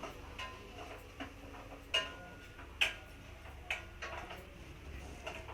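A series of light, sharp taps or clicks, about one a second at slightly uneven spacing, over a faint steady low hum.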